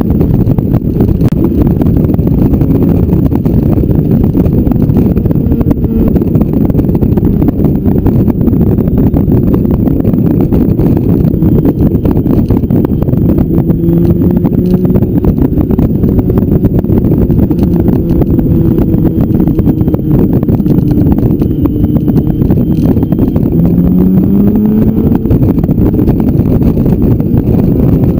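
Heavy wind buffeting on the microphone of a moving motorcycle, with the motorcycle's engine running underneath; the engine note rises once near the end as the bike accelerates.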